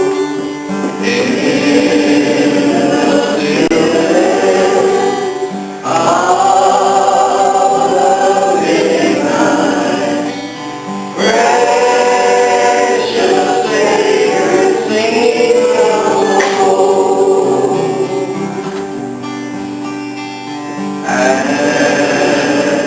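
A group of voices singing a gospel song in harmony with instrumental accompaniment, in phrases with short breaks between them.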